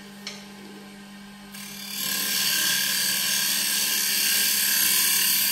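Wood lathe running with a steady motor hum while a tool works the spinning walnut plate blank. The tool's loud hiss on the wood stops at the start, with a small click just after, then builds back in about two seconds in and holds until the very end.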